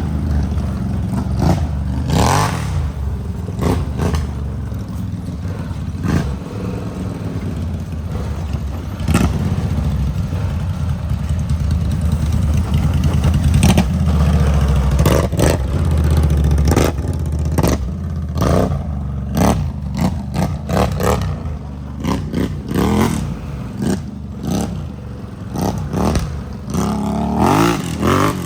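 ATV engine running under changing throttle while being ridden on a dirt trail, with frequent clattering knocks and rattles.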